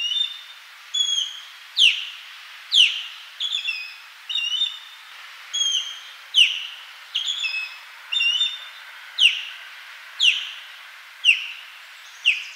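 Osprey calling: a series of short, high whistled calls, about one a second, sharply falling notes alternating with shorter paired chirps, over a faint background hiss.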